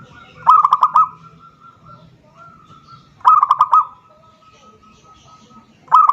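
Zebra dove (perkutut) cooing song: three short phrases of about four quick, clipped notes, spaced roughly two and a half seconds apart, the last beginning near the end.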